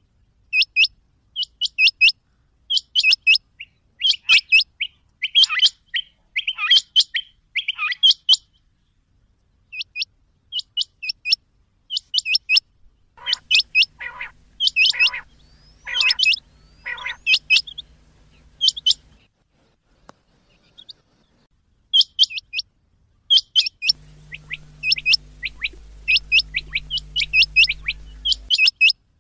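Rain quail calling: short, sharp, high notes, mostly in quick doubled pairs, repeated in rapid runs with a pause of a few seconds about two-thirds through. A faint low hum sits underneath at times in the second half.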